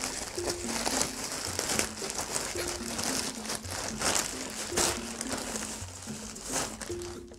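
A plastic mailer bag and bubble wrap crinkling and rustling as a bubble-wrapped parcel is pulled out of the bag, with soft background music under it.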